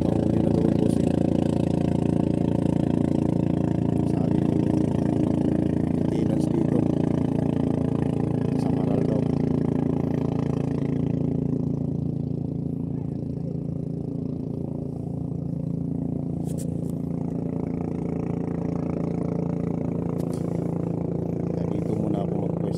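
An engine running steadily at an even speed, a low hum of several constant tones that eases slightly about halfway through.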